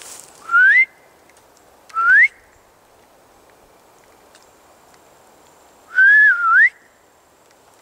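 Three short, loud rising whistles. The third wavers down and up before it rises.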